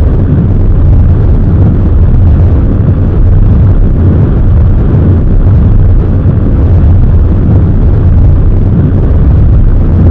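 Saturn V rocket engines burning: a loud, steady, deep rumble that holds without a break.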